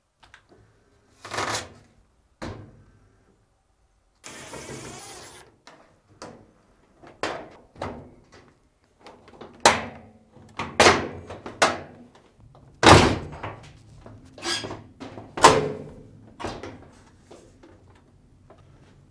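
Sharp knocks and clunks of a top-load washer's top panel being unlatched and tilted up, about a dozen hits in the second half, with a short rasp about four seconds in.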